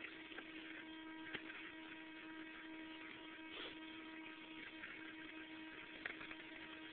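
A faint, steady hum at one unchanging pitch with overtones, with a few soft knocks about a second and a half in, midway and near the end.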